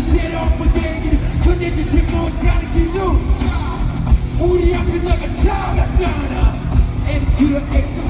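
Loud live K-pop concert music: a male vocalist singing into a microphone over a live band with drums and heavy bass, recorded by a phone from among the crowd.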